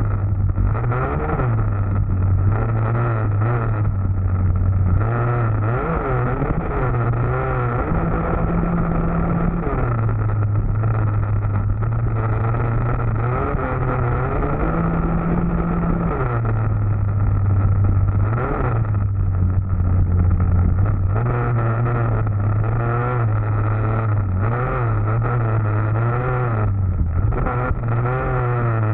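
Small youth dirt bike engine running hard along a trail. Its pitch steps up and down as the throttle opens and eases off.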